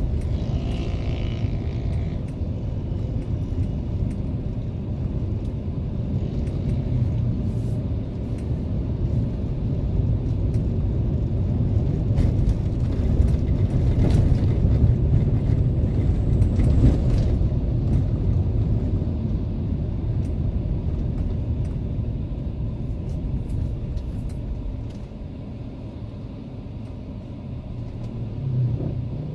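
Steady low road and engine rumble inside a moving Mercedes-Benz E320 (W210) in town traffic, swelling somewhat in the middle and dropping a little quieter near the end.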